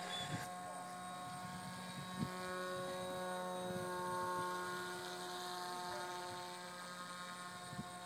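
Motor and propeller of a layered-foam RC aircraft shaped like an Angry Bird, buzzing steadily as it flies overhead. Its tone shifts and grows a little louder about two seconds in.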